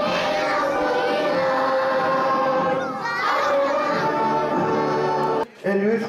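A group of children singing together in sustained, steady notes. The singing cuts off suddenly about five and a half seconds in, and a man's voice follows.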